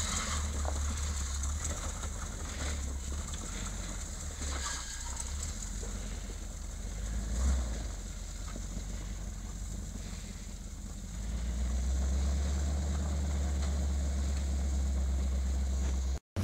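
Chevrolet K5 Blazer's engine running at low revs as the truck crawls slowly over rocky ground, a steady deep rumble that gets louder about three-quarters of the way through.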